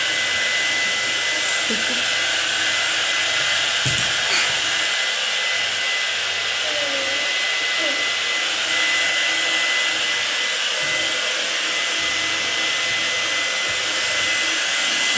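Handheld electric hair dryer running steadily, blowing on a kitten's fur to dry it: an even rush of air with a thin steady whine over it.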